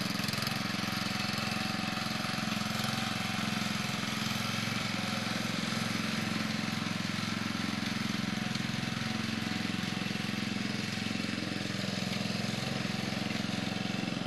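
Murray Lawn Chief rear-engine riding mower's engine running smoothly and steadily.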